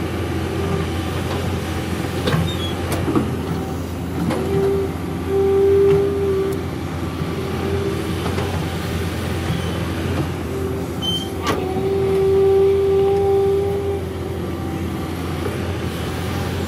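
Kobelco SK200 hydraulic excavator's diesel engine running steadily while it digs and dumps earth, with a hydraulic whine that swells twice as the boom and bucket work under load. A few sharp knocks are heard along the way.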